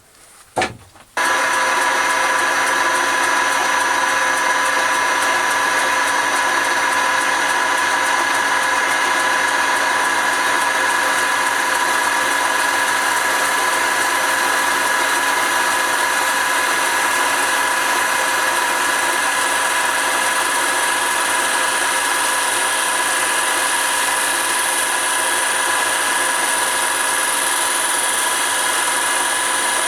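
Wood lathe switching on about a second in and running steadily with a constant whine, while a parting blade in a lever-fed holder cuts into the spinning wood.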